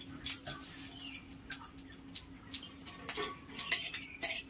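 Mustard seeds popping and crackling in hot oil in a kadai as a tadka of bay leaf, dried red chilli and mustard seed fries, a few irregular sharp pops a second.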